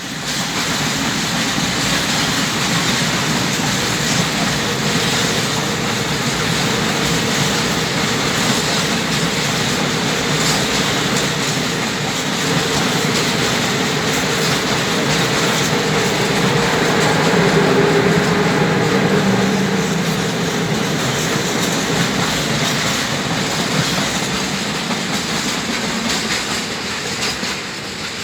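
A train running past on the rails, a loud, steady rumble and rattle of wheels and cars that builds to its loudest about two-thirds through, then begins to die away near the end.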